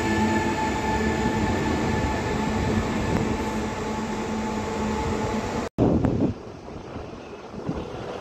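Koleje Wielkopolskie electric multiple unit moving along the platform close by, with a steady electric hum of several held tones over the running noise. About two-thirds of the way in, the sound cuts off abruptly and a quieter rumble of another electric train approaching in the distance follows.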